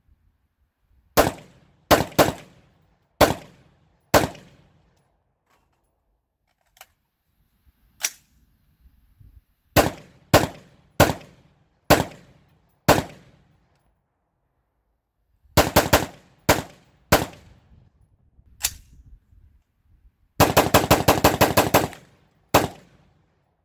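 AR-15-pattern rifle, a Smith & Wesson M&P15 Sport II, firing at the range: single shots at uneven spacing, then a rapid string of about ten shots in a second and a half near the end.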